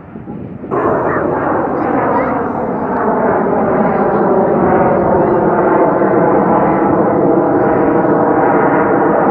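Snowbirds CT-114 Tutor jet's turbojet engine passing overhead, a loud whining roar with a steady cluster of tones that comes in suddenly about a second in and holds.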